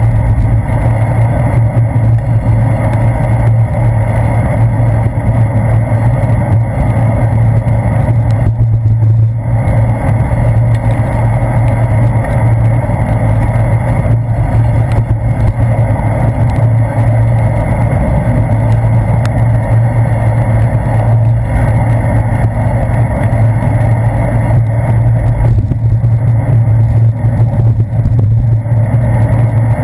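Steady, muffled ride noise picked up by a handlebar-mounted GoPro Hero 2 inside its sealed housing as a bicycle rolls along wet city streets: road and handlebar vibration with a constant low hum, and traffic blended in.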